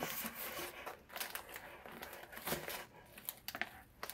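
Rustling and crinkling of plastic packaging and cardboard as an opened box's contents are handled, irregular, with a few louder crinkles.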